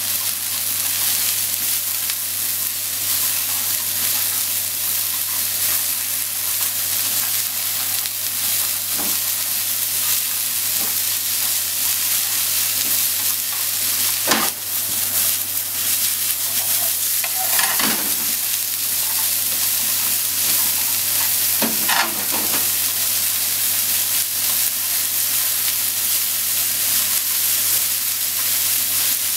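Bean sprouts, cabbage and carrot sizzling in hot oil in a frying pan as they are stir-fried and tossed, a steady frying hiss. A couple of sharp clicks stand out about halfway through and again later.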